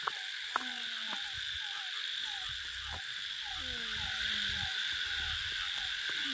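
Night chorus of insects, a steady high hiss, with short falling calls repeating two or three times a second. Two longer low tones slide downward, about a second in and again around four seconds in.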